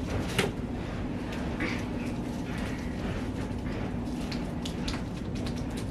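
Room noise: a steady low hum with scattered small clicks and rustles, one sharper click about half a second in.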